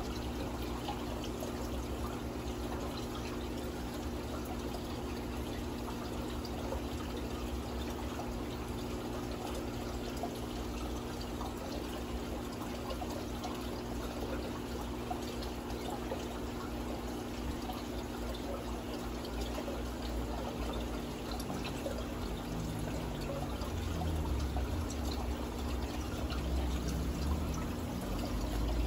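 Aquarium water circulating: a continuous trickling and pouring of water under a steady low hum. Low rumbling bumps grow louder over the last few seconds.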